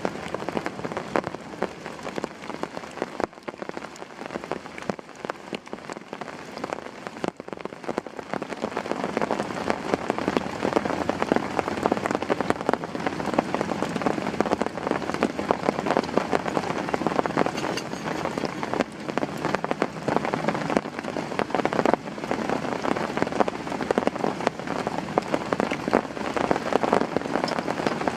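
Heavy tropical rain falling steadily, a dense spread of drops striking close by; it grows heavier about a third of the way in.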